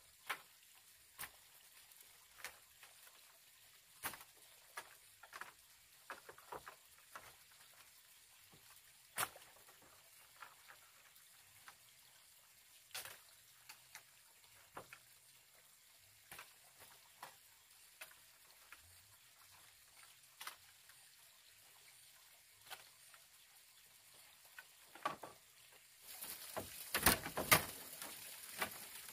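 Split bamboo strips being handled and laid on a bamboo-slat floor: sparse, irregular light clicks and taps. Near the end the sound grows louder and denser, a close crackling rustle of the dry strips being woven over and under into a mat.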